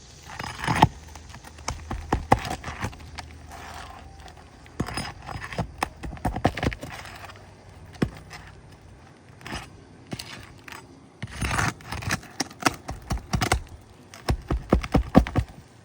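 A metal roof snake scraping and prying under asphalt shingles and at their roofing nails, in several bursts of scrapes, clicks and rattles: shingles being unsealed and nails worked loose.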